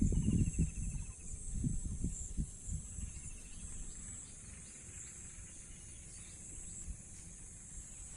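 Insects, likely crickets, shrilling steadily in a high-pitched pulsing chorus, with low rumbling gusts on the microphone in the first three seconds and a short fast trill near the start.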